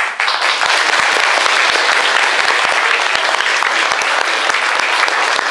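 Loud, steady applause from an audience clapping.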